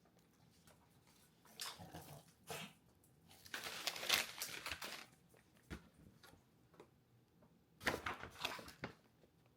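Crinkling and rustling of packaging being handled, in three short bursts with quiet between.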